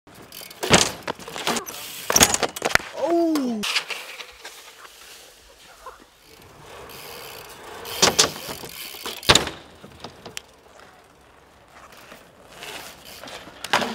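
A handful of sharp clattering impacts from BMX bikes, with a short falling cry about three seconds in.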